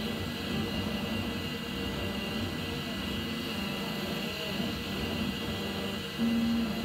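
Laser engraver running while it burns a design into a wooden block: a steady whir from its fans under a wavering low hum from the motors moving the laser head. A short, louder low tone comes about six seconds in.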